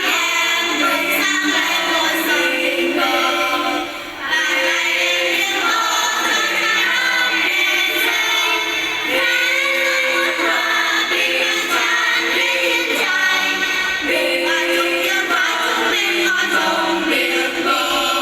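A choir singing in parts, holding sustained notes phrase by phrase, with a brief breath-break about four seconds in.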